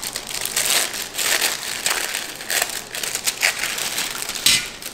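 Crinkling and crackling of the plastic film and tray of a pack of pre-cut refrigerated cookie dough being peeled open and handled, in irregular bursts, with a louder crackle near the end.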